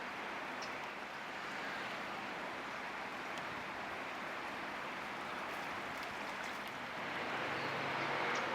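Steady outdoor background rush with a few faint, short, high chirps; it grows a little louder near the end, with a low hum coming in.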